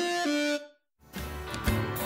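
Intro music: a melodic line steps down through a few held notes and stops about half a second in, then after a short silence a new music track starts with a regular beat.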